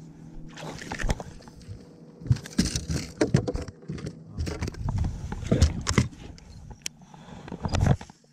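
Knocks, thumps and rustling as a small bass is landed and unhooked in the boat, over a steady low hum.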